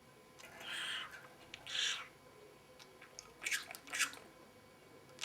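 Pet parrot making a few short scratchy, breathy noises: two longer ones in the first two seconds, then a couple of quicker clicks a little past the middle.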